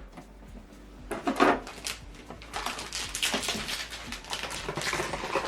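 HP DeskJet 2721e inkjet printer's internal mechanism clicking and rattling after the ink access door is closed, as the printer readies the newly fitted cartridges. There is a short clatter about a second in, then continuous clicking and rattling from about halfway through.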